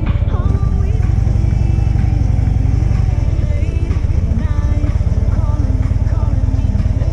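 Background music with a singing voice, over a motorcycle engine running steadily.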